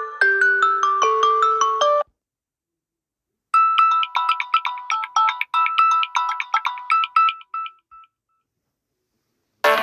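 Samsung Galaxy A30 ringtones played one after another. A melody of short notes ends about two seconds in, a second short melody starts after a pause and fades out, and a new, fuller electronic tune begins right at the end.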